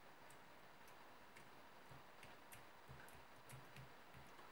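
Near silence: quiet room tone with faint, irregular ticks about twice a second.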